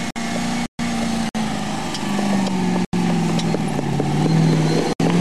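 Classic Range Rover's engine running at low revs as it crawls up a rocky, rutted track, its pitch dipping and rising again. The sound drops out completely for an instant several times.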